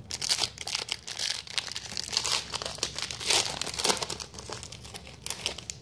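A trading-card pack's wrapper crinkling and tearing as it is opened by hand, in a dense run of irregular crackles that dies away near the end.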